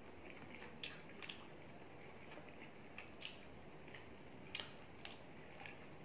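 Faint wet squishing and a few short sharp clicks of eating with the hand: fingers mixing rice and chicken curry on a plastic plate. The loudest clicks come about a second in and near the end.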